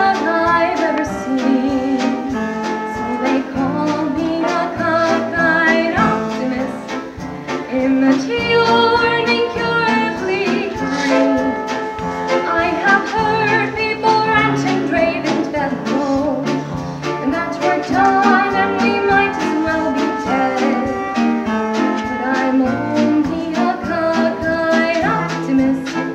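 A woman singing a show tune solo with instrumental accompaniment.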